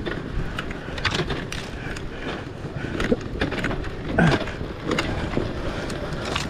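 Dirt bike ridden slowly along a rough dirt trail, its engine running low, with irregular knocks and rattles from the bike over the ruts and a brief drop in engine pitch about four seconds in.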